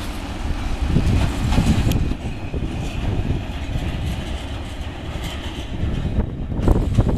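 Freight wagons loaded with steel coils rolling past on the rails: a steady low rumble of wheels on track, with a sharp click about two seconds in.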